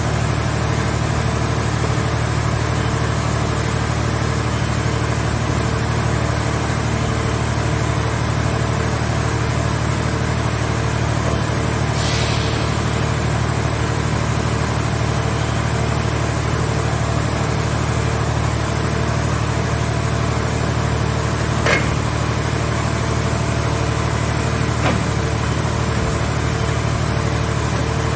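Engine of a hydraulic scrap car baler running steadily, with a brief hiss about halfway through and two sharp clicks near the end.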